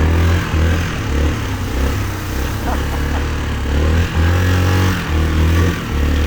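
Yamaha Kodiak 450 ATV's single-cylinder four-stroke engine running while being ridden, its low note dropping out and coming back several times as the throttle is let off and opened again.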